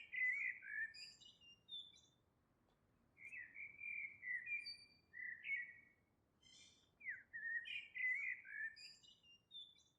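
A songbird singing short, whistled, warbling phrases, three songs a few seconds apart, with quiet gaps between them.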